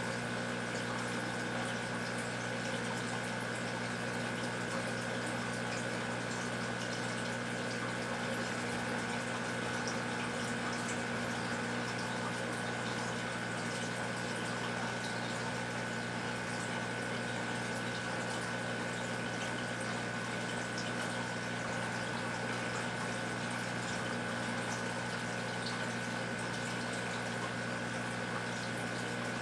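Aquarium pump running steadily: a constant hum under an even rush of moving water.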